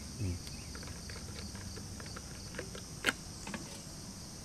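Small clicks and knocks of a bottle and its lid being handled on a wooden table, with one sharper click about three seconds in. Insects chirr steadily and high-pitched underneath.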